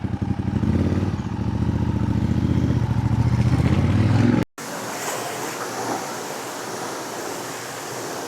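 Ducati Diavel's 1198 Testastretta L-twin engine running steadily, with a slight rise in revs a little before it cuts off about four and a half seconds in. A steady rushing noise follows.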